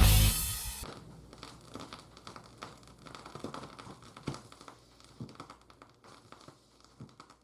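Rock music stops abruptly about a second in. After that comes faint crinkling and rustling with scattered small taps, as of packaging being handled.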